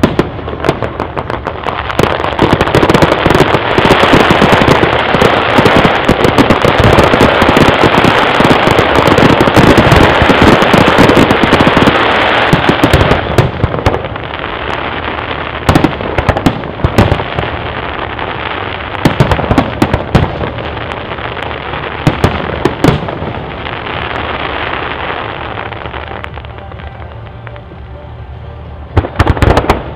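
Aerial fireworks bursting: a dense, loud run of crackling and bangs builds in the first couple of seconds and keeps up until about halfway. It then thins to softer crackle with scattered sharp bangs, and a few loud bangs come near the end.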